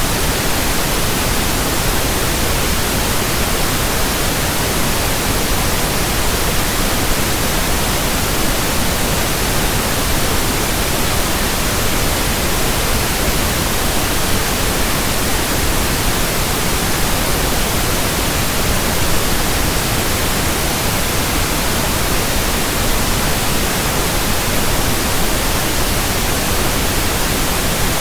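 Steady synthetic pink noise: an even, unbroken hiss that does not change.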